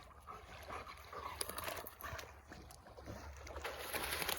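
A dog wading and splashing in shallow pond water, with irregular small splashes and sloshes that grow louder near the end.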